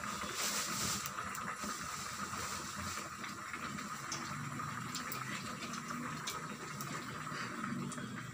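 Garlic cloves frying in hot oil in a small steel pan over a low gas flame: a soft, steady sizzle with scattered small crackles.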